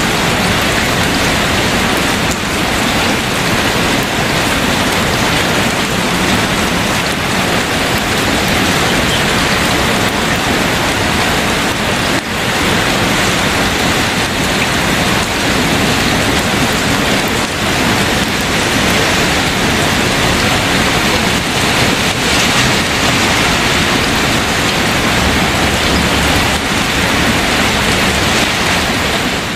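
Steady, loud rain: an even hiss that keeps going without a break.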